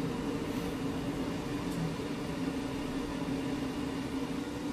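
A steady machine hum with a few constant tones.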